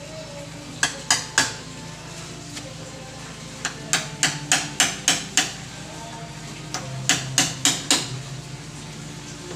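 Small hammer tapping small nails into wooden picture-frame molding. Three quick taps come about a second in, a run of about seven in the middle, and four more near the end.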